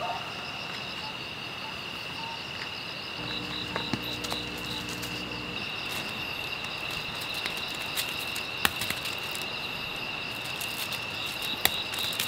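Crickets chirping steadily in a continuous high trill. A low hum joins in about three seconds in and stops about two seconds later, with a few faint scattered clicks.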